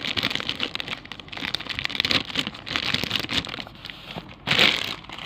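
Packaging crinkling and rustling as it is handled, with a louder crinkle about four and a half seconds in.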